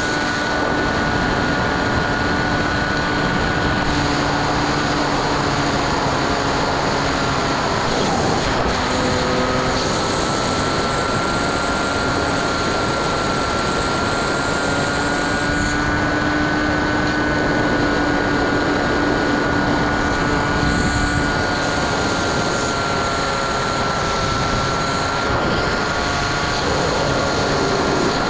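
Bixler 2 RC plane's brushless electric motor turning a 9x6 propeller in flight: a steady whine that wavers slightly in pitch, over the rush of wind on the onboard camera.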